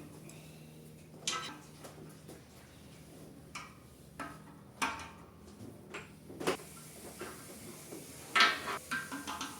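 Metal objects being handled: a series of irregular clinks and knocks, some with a short metallic ring, the loudest about eight and a half seconds in and followed by a quick cluster. A faint steady low hum sits underneath.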